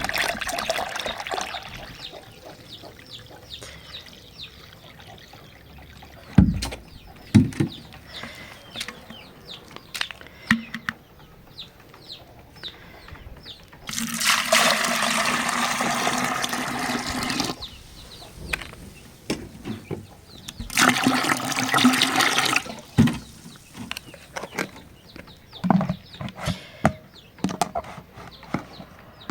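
Water being poured, in two spells of a few seconds each: one about halfway through, a second a few seconds later. Scattered short knocks come in between.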